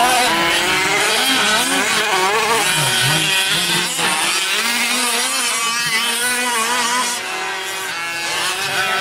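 Several small two-stroke engines of 1/5-scale gas RC race trucks revving up and down together, their overlapping pitches rising and falling as the throttles open and close. A little quieter for a moment about seven seconds in.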